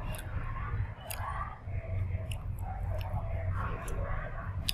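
A person chewing a soft, chewy sweet cake close to the microphone, with wet mouth clicks every second or so, over a steady low rumble.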